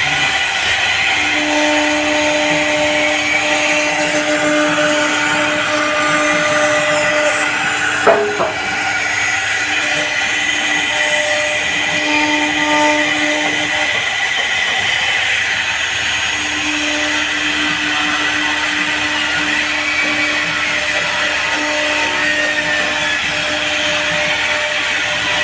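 CNC router spindle running steadily, carving an HDHMR board, with a lower hum that comes and goes several times and a single sharp knock about eight seconds in.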